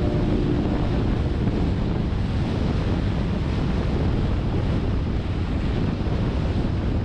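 Steady wind noise buffeting the microphone of a camera on a moving motorcycle, a dense even rush heaviest in the lows with no engine note standing out.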